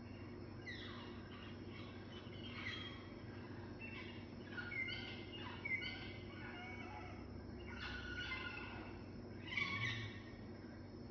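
Birdsong from a wildlife program played through a TV's speakers: short chirps and falling whistled calls, repeated many times and loudest about six and ten seconds in, over a steady low hum.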